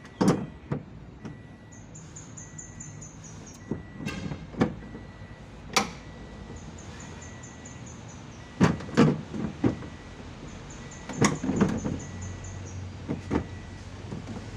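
Irregular knocks and clanks of hand work on a car, with clusters of sharp strikes. A repeating series of high, short chirps sounds in the background, and a low steady hum sets in near the end.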